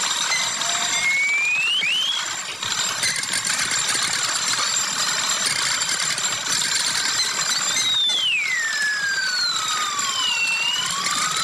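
Sliding whistle glides over a constant harsh noise: a short rising whistle about two seconds in, then near the end a long whistle that slides down and rises again.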